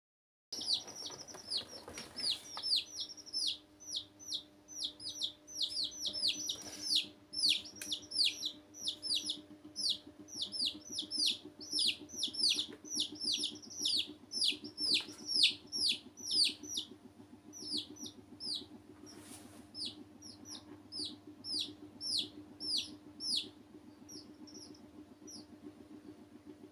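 Domestic chicks peeping: a rapid stream of short, high calls that slide down in pitch, about three a second, thinning out near the end.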